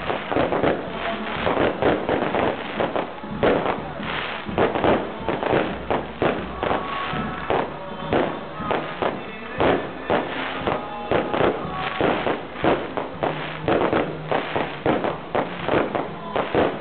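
Fireworks going off in quick, irregular bangs and crackles, several a second, without a break.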